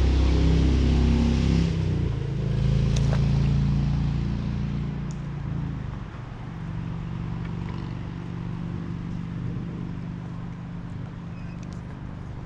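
An engine running steadily, louder for about the first two seconds and then settling to an even level, with a single sharp click about three seconds in.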